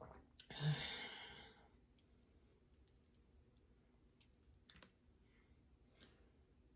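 A woman's breathy sigh about half a second in, fading out over about a second, followed by a few faint clicks.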